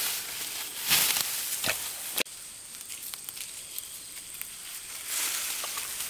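Ripe rice stalks rustling and crunching as they are gathered and cut by hand, with a few sharp swishes in the first two seconds that break off abruptly, then softer rustling and small ticks, rising again near the end.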